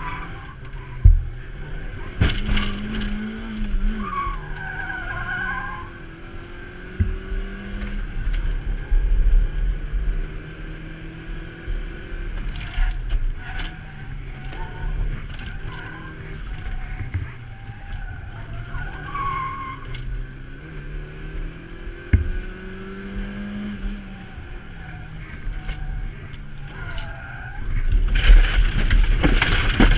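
Car engine revving up and falling back in the cabin as the car is driven hard through tight turns, with the tyres squealing in the corners. There are a few sharp knocks, and a louder rushing stretch near the end.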